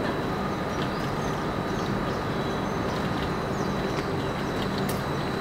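Steady outdoor background noise: an even rushing hiss with a thin constant high whine, and a few faint short chirps over it.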